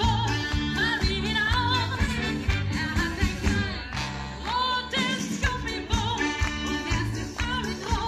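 A live band playing an upbeat song: a woman singing with vibrato over drums, keyboard, guitar and horns, with a steady beat.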